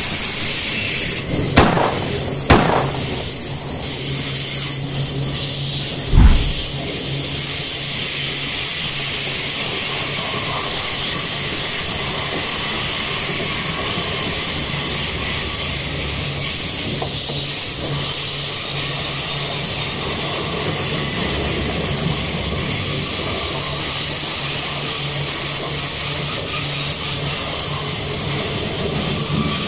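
Loaded iron-ore gondola wagons rolling past on the track: a steady rumble and hiss of steel wheels on rail, with three loud clanks in the first seven seconds.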